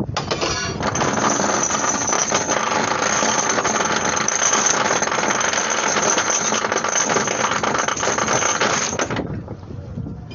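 Sailing ship's anchor chain running out over the windlass as the anchor is let go: a loud, continuous metallic rattle that cuts off abruptly about nine seconds in.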